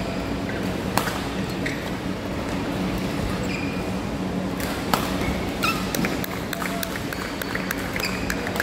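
Badminton hall sounds over a steady hum: a sharp hit about a second in and another about five seconds in, with short squeaks of court shoes and light taps from play on the courts, thickening near the end.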